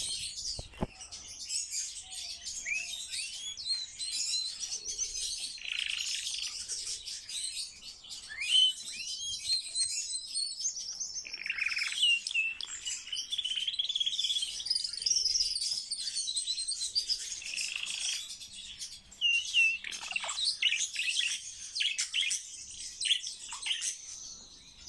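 Common starling singing a long, rambling song of quick whistles, chirps, rising and falling slurs and clicks, with hardly a pause.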